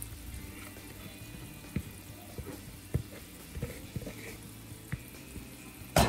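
Sliced potatoes and tomato masala sizzling softly in a frying pan while a spatula stirs and scrapes the bottom, giving scattered light clicks and a louder knock near the end.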